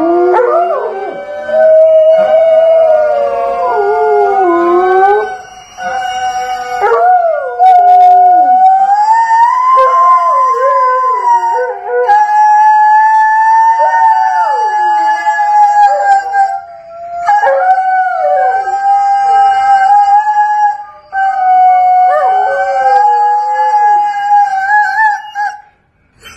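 Husky-type dogs howling together in long, drawn-out howls. Several voices overlap, one holding a fairly steady pitch while another slides up and down, with a few short breaks between howls.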